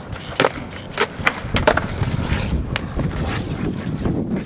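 Freestyle skateboard on asphalt: several sharp clacks as the board is flipped and lands under the rider's feet in the first couple of seconds, then the wheels rolling with a low rumble.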